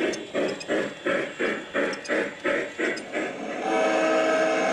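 Sound unit of a large-scale model Chesapeake & Ohio steam locomotive chuffing steadily, about three chuffs a second. About three and a half seconds in it gives way to a steady, chord-like horn from a model Santa Fe diesel locomotive.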